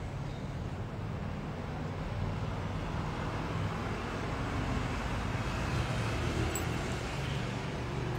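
Road traffic noise from a car passing along the street, swelling gently to a peak about six seconds in and then fading, over a steady low hum.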